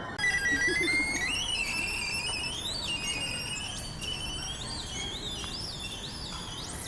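Homemade electronic bird-sound synthesizer built from recycled circuits, giving a wavering electronic tone with a fluttering, rising pitch and short upward chirps in the second half, imitating birdsong. Its pitch is steered by a light sensor.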